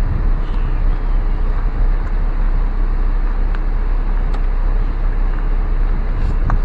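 Steady low rumble of a car rolling slowly along a park road, heard from inside, with a few faint ticks.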